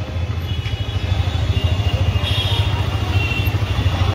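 Road noise from riding through city traffic: a steady, fluttering low rumble of a vehicle on the move, with wind buffeting the microphone.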